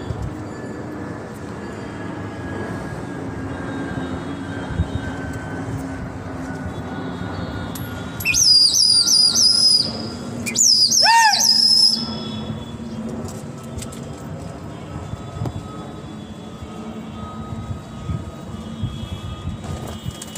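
Steady outdoor city background noise, broken about eight seconds in by two loud runs of high, wavering whistles, each lasting one to two seconds, the second sliding in pitch.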